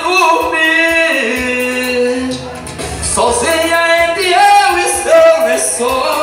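Man singing live into a microphone, holding long drawn-out notes in two phrases with a short breath between them. Keyboard backing and a steady percussion beat play under the voice.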